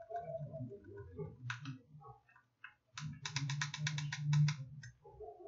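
Small plastic clicks from the buttons of a DIY digital clock kit as the alarm minutes are stepped up: a single click, then about a second and a half later a fast, even run of clicks, about eight a second.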